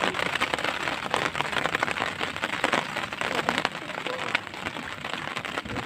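Rain falling on open lake water: a steady hiss with a dense patter of sharp drop ticks.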